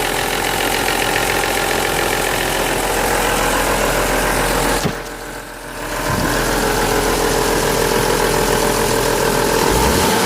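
BMW S50B32 3.2-litre straight-six running at low rpm with the classic VANOS rattle, caused by failed seals, blocked filters, worn bearings and worn cam gears in the variable valve timing unit. The sound drops briefly quieter about halfway through, then comes back.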